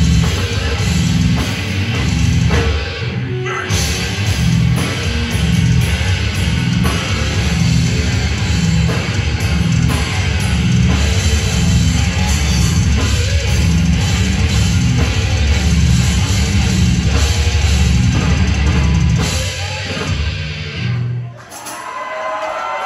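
Death metal band playing live: distorted guitars, bass and drums with vocals, heard through the club's PA. There is a short break about three seconds in, and the song stops near the end.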